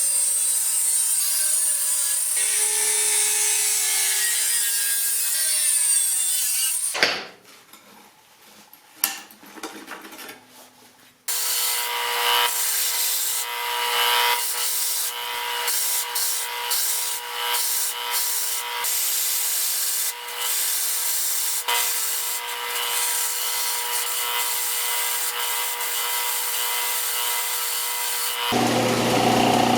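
Sawing strokes for about seven seconds, then a quiet pause with a click, then steady rasping work over a steady hum for the rest, with a lower drone starting near the end.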